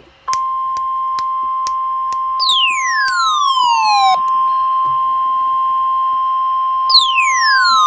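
NOAA Weather Radio 1050 Hz warning alarm tone: a steady, high-pitched tone, the signal sent to switch on weather alert receivers. Twice over it, about two and a half seconds in and again about seven seconds in, a tone sweeps down from high to low.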